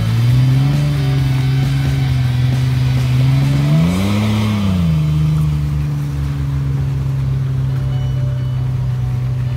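Vehicle engine running steadily at low speed on a dirt track, revving up and falling back once about four seconds in.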